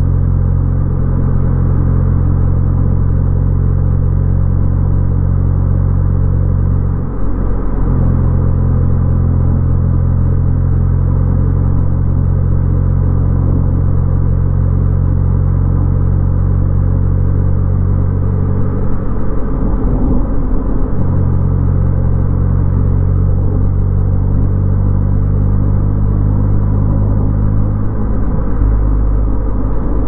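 Car engine and road noise during a drive: a steady, loud engine drone with a low hum of road rumble, its pitch briefly breaking and shifting about a quarter of the way in and again a little past the middle.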